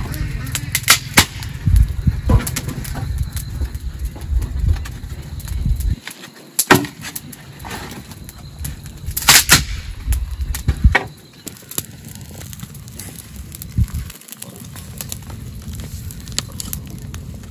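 Wood fire crackling with sharp pops, and gusty whooshing of air as a wooden board fans the flames through roughly the first eleven seconds.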